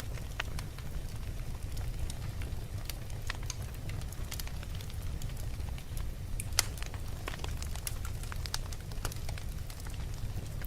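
Wood fire burning in a fireplace: a steady low rumble of flames with irregular crackles and pops, the sharpest pop about two-thirds of the way through.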